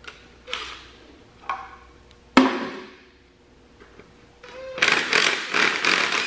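Hand socket ratchet working bolts loose on a tractor engine block: scattered metal clicks, one sharp metallic clank about two and a half seconds in, then a quick run of ratchet clicks near the end.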